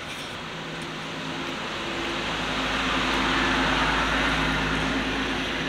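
A road vehicle passing: a rushing noise with a low engine hum that builds to a peak about three to four seconds in and then fades.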